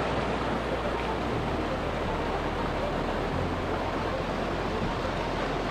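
River rapids rushing and splashing over rocks around a wooden longboat, a steady wash of water noise.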